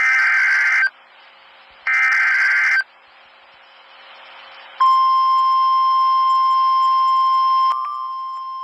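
Emergency Alert System header: two short bursts of raspy, screeching digital data tones about a second apart. After a pause, a long steady electronic alert tone begins about five seconds in and drops slightly in level near the end.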